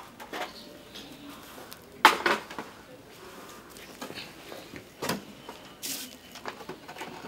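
A few short knocks and clinks of a metal serving tray and dishes being handled, the loudest about two seconds in and two more around five and six seconds.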